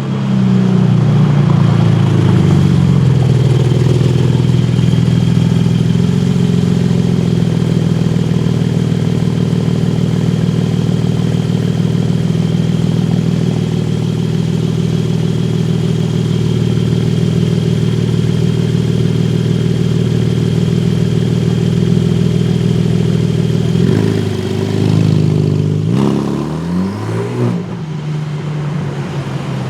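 A performance car's engine idling with a steady deep note, then its pitch rising and falling a few times near the end as it is revved.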